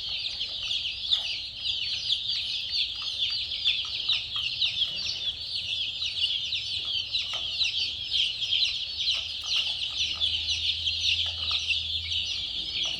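A crowd of baby chicks peeping all at once: a dense, unbroken chorus of short, high, downward-sliding peeps.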